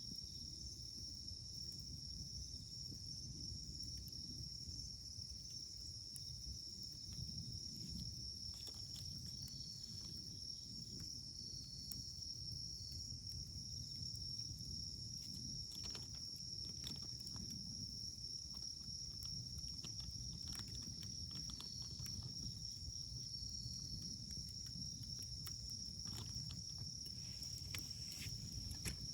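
Insects chirring in one steady, high, unbroken trill over a low rumble, with scattered sharp pops and crackles of burning firewood, clustered about a third of the way in, around the middle and near the end.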